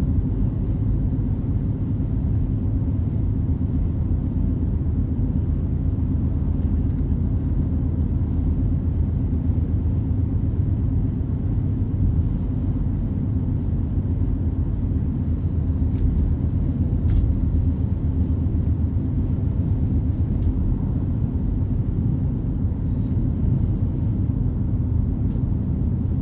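Steady low rumble of a car driving, engine and road noise, with a couple of faint clicks about two-thirds of the way through.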